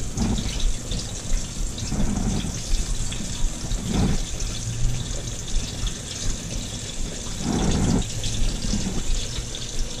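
Catfish pieces deep-frying in hot oil: a steady crackling sizzle that swells a few times.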